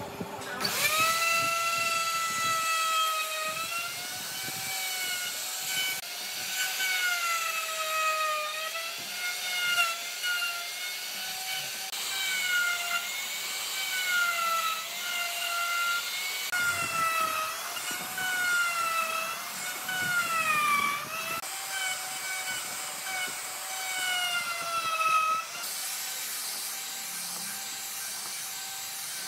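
Electric plunge router switching on just after the start, its whine rising to speed, then cutting across a wide wooden slab on a flattening sled. The pitch dips and recovers again and again as the bit bites into the wood, and it holds steadier over the last few seconds.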